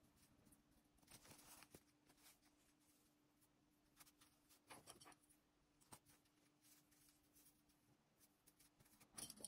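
Near silence: faint rustling of cotton fabric being handled and a few soft clicks as plastic sewing clips are fastened along the edges, over a faint steady hum.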